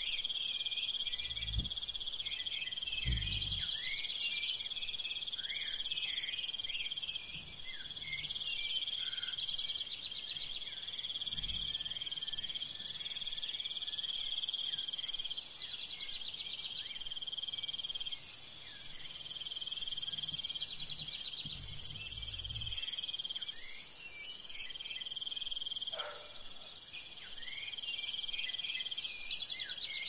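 Chorus of crickets and other insects: a steady high trill overlaid with a repeating call roughly every two and a half seconds, plus scattered short chirps. A few faint low rumbles come and go.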